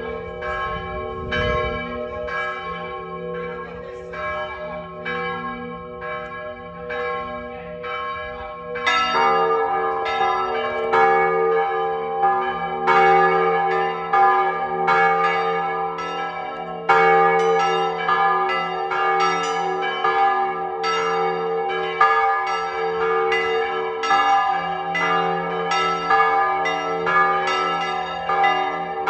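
Plenum of a three-bell church peal, bells probably cast by the Mari foundry, all swinging and striking in an overlapping, irregular pattern with long ringing tones. About nine seconds in a deeper bell joins and the ringing grows louder.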